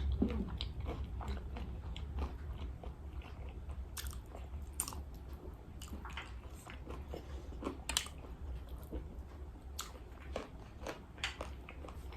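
Close-up eating sounds of crispy fried chicken: irregular crunchy bites and chewing, with the sharpest crunches about 4, 5 and 8 seconds in.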